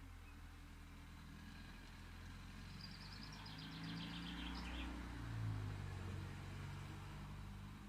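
Low rumble of a passing vehicle, swelling to its loudest about five and a half seconds in and then fading. About three seconds in, a small bird sings a short trill of rapid repeated high notes.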